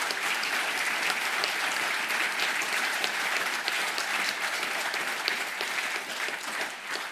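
Audience clapping in a hall, a dense patter of many hands that dies away near the end.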